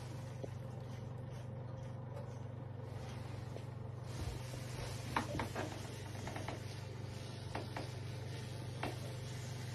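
Steady low mechanical hum, with a few faint clicks and crackles in the second half.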